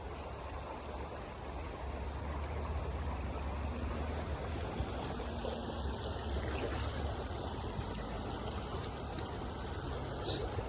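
Creek water rushing steadily through shallow rapids.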